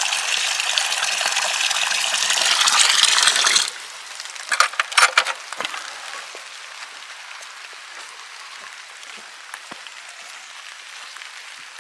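Water gushing from a rainwater collection tote into a bucket, the sound rising in pitch as the bucket fills, then cut off abruptly about three and a half seconds in. A few sharp knocks follow.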